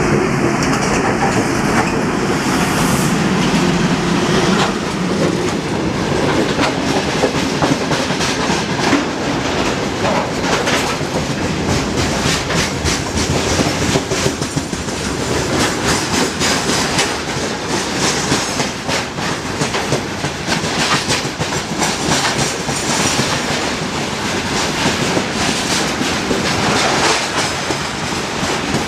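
Freight train rolling past close by, its wheels clattering steadily over the rail joints.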